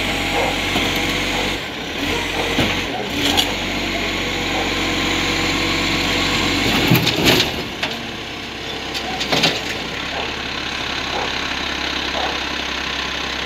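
Iveco ACCO garbage truck's diesel engine running while its side-loader arm picks up and empties a wheelie bin, with several knocks and clatters. The loudest clatter comes about seven seconds in, after which the engine's low hum drops.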